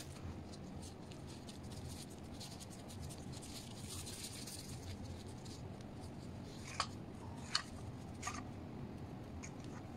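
Plastic-gloved hands rustling and scraping through crumbly Oreo and cream-cheese mixture, then three light, sharp clinks of a metal fork against a steel bowl of melted white chocolate, over a steady low background hum.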